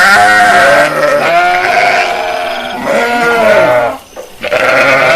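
Sheep bleating: about four long, wavering bleats in a row with short gaps, some overlapping at different pitches.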